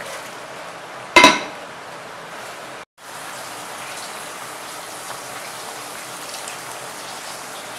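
Curry simmering in a clay pot with a steady bubbling patter, and a single sharp ringing clink about a second in. After a brief break near three seconds, tamarind water trickles and splashes as it is squeezed and poured into the simmering curry.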